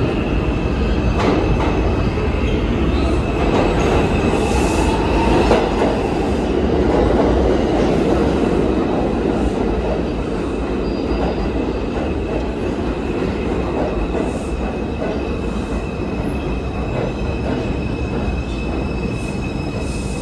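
New York City subway train pulling into an underground station, its cars rumbling past along the platform as it slows, with a steady high wheel squeal over the running noise.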